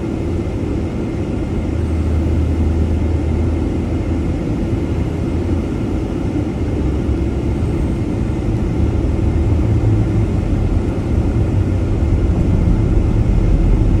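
Steady low rumble of a moving vehicle, with road and engine noise heard from inside the vehicle as it drives along the highway.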